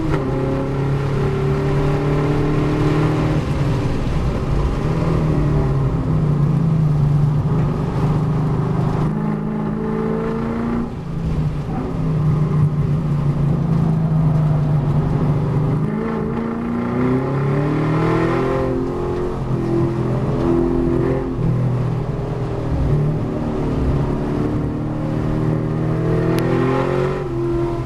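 V8 race car engine heard from inside the cabin, revving up hard and dropping back several times as it is driven through gear changes, braking and corners.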